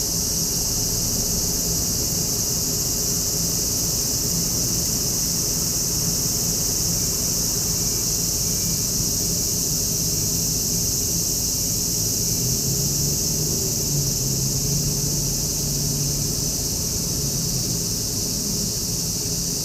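Steady chorus of insects, an unbroken high-pitched hiss, over a low steady hum.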